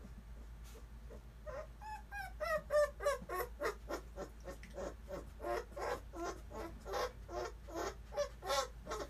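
Four-week-old Bernese mountain dog puppies whining, a rapid run of short high-pitched cries at about two to three a second, starting about a second and a half in.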